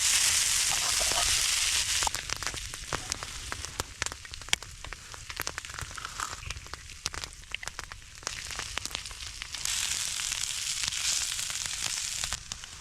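Frozen corned beef hash sizzling on a hot griddle. The hiss is loudest for the first two seconds and again from about ten seconds in, with scattered pops and crackles in between.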